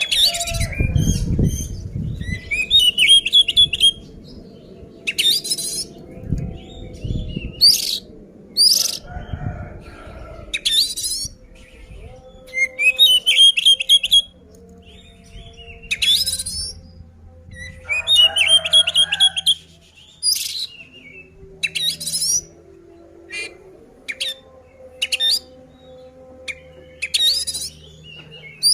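Oriental magpie-robin (kacer) singing loudly in short repeated phrases, sharp rising whistles and fast rattling trills with brief pauses between them: the full, aggressive fighting song that provokes rival males. Low rumbles underlie the first ten seconds or so.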